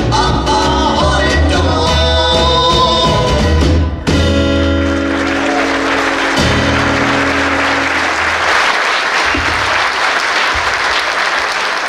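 Live rockabilly band with two singers, acoustic guitar, upright bass and a small drum kit finishing a song; about four seconds in it ends on a held chord that rings out briefly. Audience applause then takes over for the rest.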